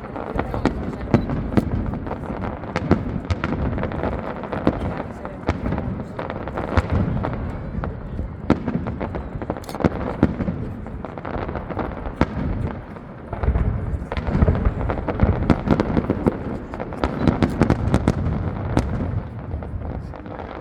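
Fireworks display: a dense, continuous run of bangs and crackles over low booms, easing briefly about two-thirds of the way through before a louder stretch of bursts.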